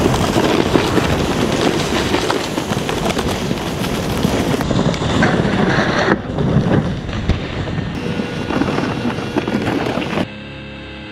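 Snowboard sliding and scraping over packed snow, with wind buffeting the microphone and scattered knocks, in several abrupt cuts. Near the end the sound gives way to guitar music.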